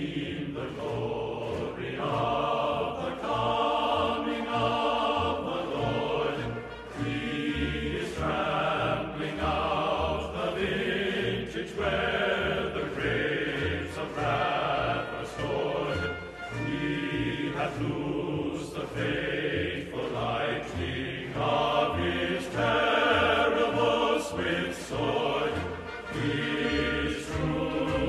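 Background music: a choir singing with instrumental accompaniment.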